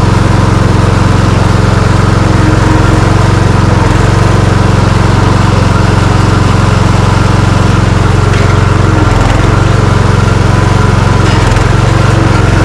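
Riding lawn mower engine, rigged for clearing snow, running steadily while the mower is driven.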